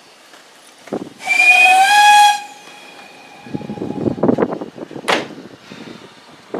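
Narrow-gauge steam locomotive's whistle: one loud blast of a little over a second, several tones sounding at once over a rush of steam, the driver's answer to the guard's green flag as the train is cleared to depart. A faint ringing tail fades out after it.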